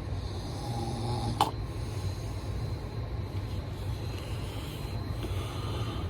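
A person snoring, with noisy breaths coming and going over a steady low rumble. There is one sharp click about a second and a half in.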